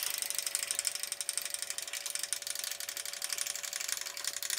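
Deckel FP1 milling machine's table traversing under power feed: a steady, fast, even ticking from the feed gears over a low motor hum.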